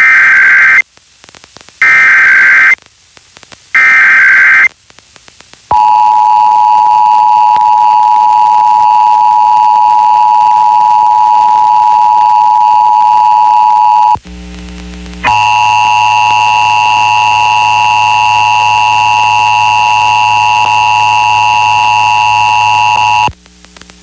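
Emergency Alert System test received over FM radio: three short bursts of the screeching SAME digital header, then the steady two-tone attention signal for about eight seconds. After a second of low hum, the two-tone attention signal sounds again for about eight more seconds and stops into hum.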